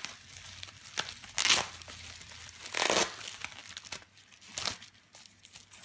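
Plastic bubble wrap crinkling and rustling as a package is unwrapped by hand, in three main bursts about a second and a half apart.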